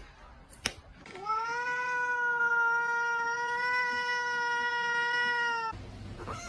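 A cat's long, steady yowl held for about four and a half seconds, then cut off suddenly. A single sharp click comes just before it.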